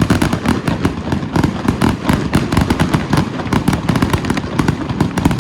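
Fireworks going off in quick succession: dense, continuous crackling with many sharp bangs packed close together.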